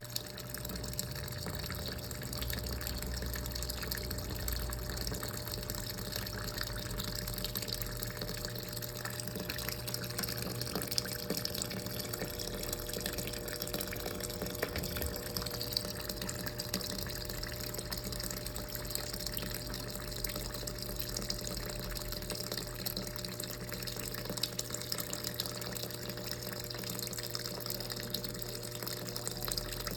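Brastemp Clean washing machine running mid-cycle: a steady machine hum with water sloshing and rushing through it.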